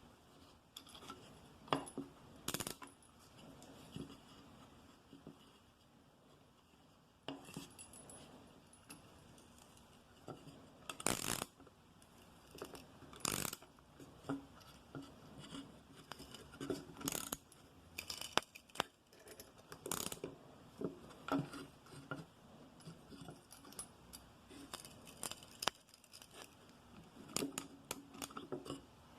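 Scattered sharp metallic clicks and clinks from a homemade wire hose clamp tool, a bolt with nuts on steel bar stock, being worked to tighten a wire loop, with a quieter pause of a couple of seconds early on.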